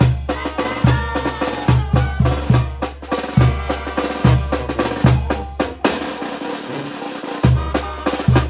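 A Mexican brass band (banda) playing an instrumental passage of a corrido: a pitched melody over a steady beat of bass notes, bass drum and snare. The bass drops out for a moment about two-thirds of the way through, after a quick flurry of drum hits, then the full band comes back in.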